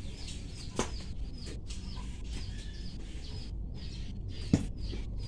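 Small birds chirping in short, high, falling notes, a few a second, over a steady low background rumble; a sharp knock about four and a half seconds in.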